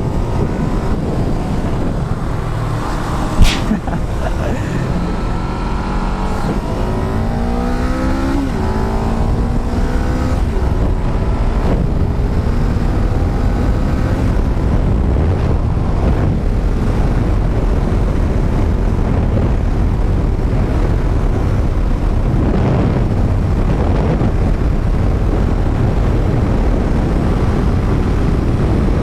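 Sport motorcycle engine accelerating through the gears: the pitch climbs and drops back with each upshift several times, with a single sharp crack about three seconds in. It then settles into steady cruising with heavy wind and road noise.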